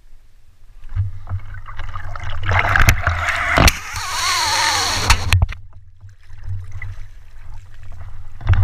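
Water splashing and sloshing around a boat, loudest and sharpest in the middle, with a low rumble underneath.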